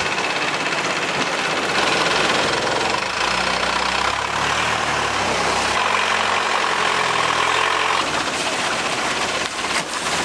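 A motorboat's engine runs steadily, picking up slightly about two seconds in.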